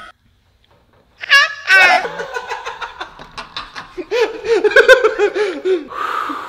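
About a second of silence, then a brief high-pitched vocal squeal followed by people laughing hard in quick, pulsing bursts.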